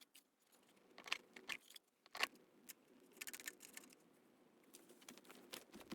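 Faint scattered clicks and light rattles, about a dozen short ticks over a low hum, like small hard objects being handled.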